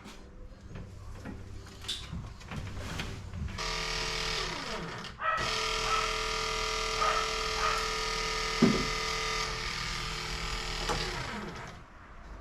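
Small electric motor whining steadily. It starts about three and a half seconds in, cuts out for a moment around five seconds, then runs on evenly until shortly before the end. A single knock sounds partway through.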